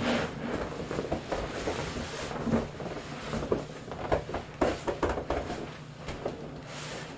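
Irregular crinkling and rustling of a plastic raincoat against the vinyl of an inflated pool, with short squeaks and soft bumps as a person leans over and climbs into it.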